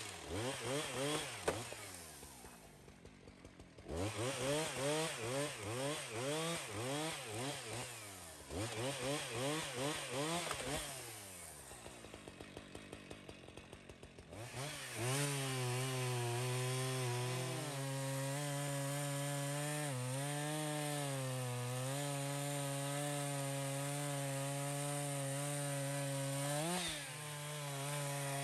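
Husqvarna chainsaw revved in quick repeated bursts, dropping back twice to a lower idle, then held at steady high speed cutting through a fallen tree from about halfway in, its pitch dipping briefly a few times.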